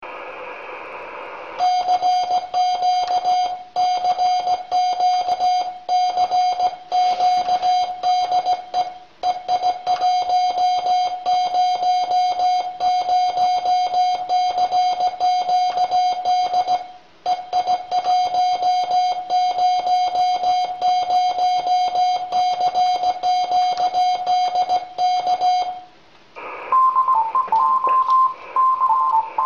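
Morse code (CW) on an amateur radio set: a steady tone of about 700 Hz keyed rapidly on and off in dots and dashes, sent in groups with short pauses between them. Near the end it stops, and a higher-pitched Morse tone starts.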